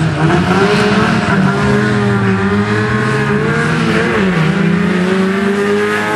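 Škoda 100-series saloon accelerating hard from a sprint start, its engine revving high with a sharp drop in pitch about four seconds in at an upshift, then pulling again as it passes close by.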